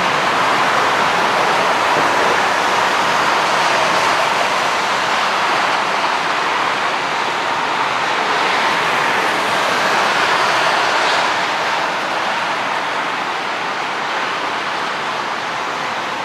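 Jet engines of an Airbus A320 airliner, a steady rushing noise as it rolls along the runway after landing, easing slightly in the second half.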